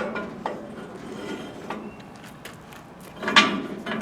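Steel rod being slid into the top tube of a tractor fork quick-connect: light metal clicks and taps, then a louder metallic clank and scrape a little after three seconds in.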